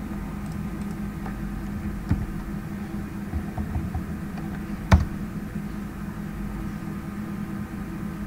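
Steady electrical hum with a scattering of computer keyboard and mouse clicks as a web address is typed, the sharpest click about five seconds in.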